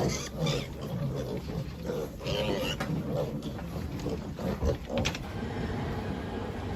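Pigs grunting, several calls overlapping irregularly, busiest in the first five seconds.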